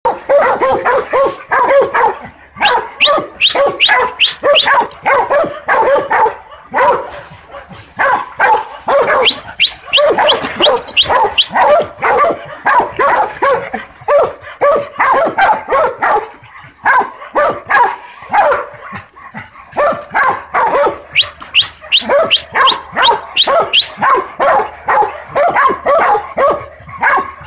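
Young hog dogs baying a hog: rapid, continuous barking, about three to four barks a second, in long runs broken by short pauses.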